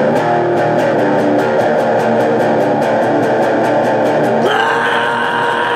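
Electric guitar playing a heavy metal riff in fast, evenly pulsed strokes. About four and a half seconds in, it gives way to a held, ringing chord.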